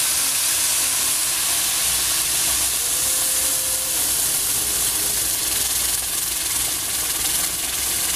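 Just-boiled water poured into a hot pan of fried bulgur, chicken and carrots, hissing and sizzling steadily as it hits the hot oil.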